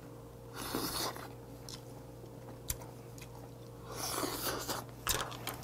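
Mouth sounds of eating crab meat straight from a cooked red snow crab leg: two short slurping sucks, the first about half a second in and the second about four seconds in, with chewing and a few small clicks between them.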